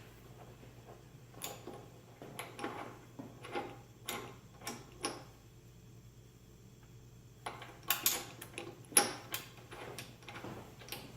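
Light metallic clicks and clinks of nuts, bolts and hand tools being handled as jam nuts are loosely threaded onto a load cell's mounting hardware. They come in two busy spells with a quieter stretch of about two seconds in the middle, over a faint steady low hum.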